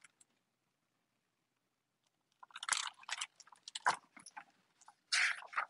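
A hardcover picture book being handled and its pages turned: a run of paper rustling and crackling that starts about two and a half seconds in, after a near-silent pause.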